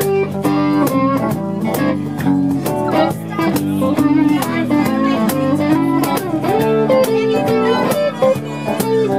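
Live blues band playing an instrumental passage: electric guitar lines with bent, sliding notes over rhythm guitar and keyboard, with a steady beat.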